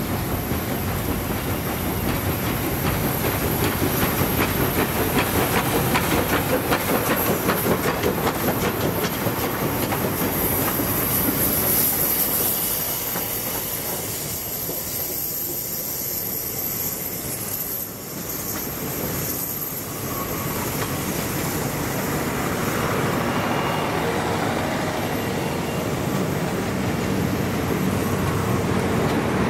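A 1950 Japanese-built oil-fired steam locomotive passes close by, followed by its coaches rolling past. For the first several seconds there is a regular pulsing clatter of the wheels, which eases as the coaches go by.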